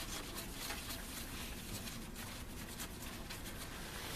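Toilet paper damp with isopropyl alcohol being rubbed over a CPU to wipe off old thermal paste: irregular soft scrubbing strokes, several a second.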